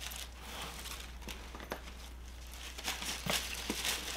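Faint rustling and crinkling of packaging being handled, with scattered light clicks and taps that grow a little louder near the end.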